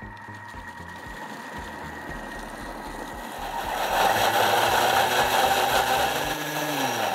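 Thermomix food processor blending cooked kohlrabi and cream into a purée: the motor runs with a steady whine, gets louder about four seconds in, then winds down with a falling pitch near the end.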